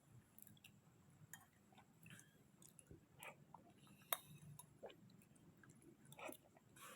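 Quiet close-miked chewing of soft sweet potato in kolak syrup: small wet mouth clicks and smacks come irregularly, with one sharper click about four seconds in.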